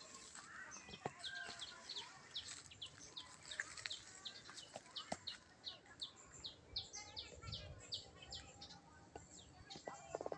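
Sooty-headed bulbul (kutilang) chirping: a fast, steady run of short, high, downward-sliding notes, several a second.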